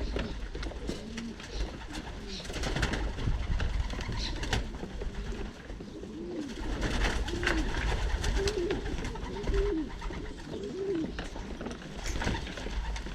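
Racing pigeons cooing in a loft: a series of short rising-and-falling coos, most frequent in the second half, with scattered sharp clicks.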